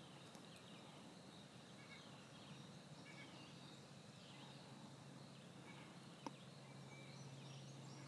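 Near-silent woods with faint, scattered bird calls and a faint steady low hum. A single sharp click sounds about six seconds in.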